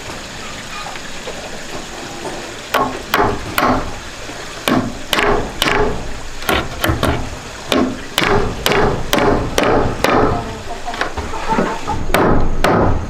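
A hammer nails into a wooden door-frame post. A run of sharp strikes starts about three seconds in and goes at about two a second, with short pauses between groups.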